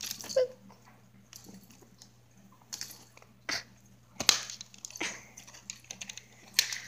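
Kitten scuffling among shoes and a bag: irregular rustles, scratches and sharp clicks, the sharpest a little after four seconds in. A brief squeak comes about half a second in.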